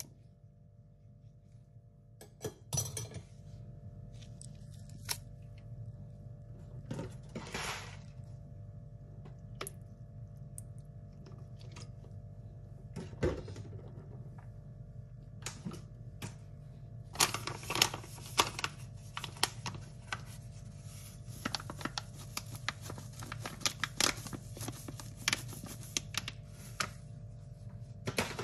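Raw goat meat being seasoned in a glass baking dish. A pepper mill grinds in a few short crunching bursts, and about halfway through a long run of quick clicks and taps begins. A steady low hum runs beneath.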